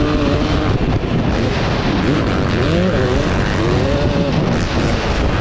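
KTM 250 SX two-stroke motocross engine, with a factory tuned pipe and Pro Circuit R-304 slip-on silencer, revving up and down as the bike is ridden hard, the pitch rising and falling through the middle. Heavy wind and roost noise on the bike-mounted microphone.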